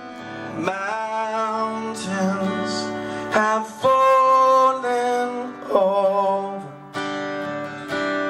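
Live rock band playing a guitar-led song intro, with sustained pitched notes that swell in every couple of seconds.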